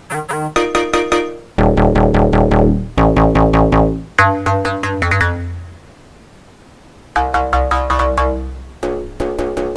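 Electronic Vina House sample loops played back: short synth melody phrases over a heavy bass. One loop fades out about six seconds in, and after a brief quieter gap another synth-and-bass loop starts.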